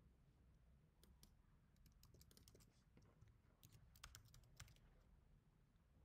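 Faint typing on a computer keyboard: quick, irregular key clicks that start about a second in and stop near the end.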